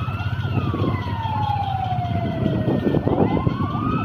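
A wailing siren: a tone that climbs quickly and then falls slowly, cycling about every three and a half seconds, over a steady low rumble.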